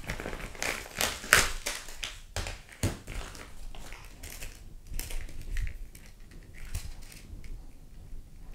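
Plastic bag crinkling and light taps as a spool of PVA 3D-printer filament is handled: irregular crackles, densest and loudest in the first two seconds, thinning out later.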